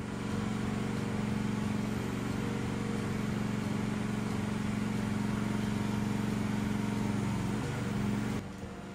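Kymron RH14G mini excavator's engine running steadily while the boom, arm and bucket are worked. Its note wavers briefly near the end, then the sound drops away suddenly.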